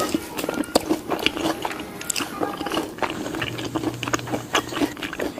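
Toddler biting and gnawing on a piece of lechon (roasted pig), making many small mouth clicks and smacks.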